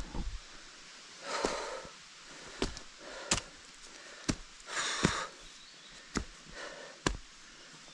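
A hiker breathing hard on a steep climb, two long heavy breaths about three and a half seconds apart, with a few sharp knocks of footsteps in between.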